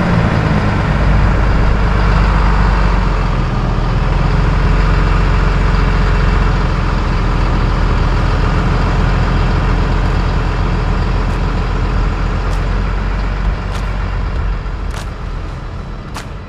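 Truck engine running steadily with a low rumble, which eases off over the last few seconds, with a few faint clicks near the end.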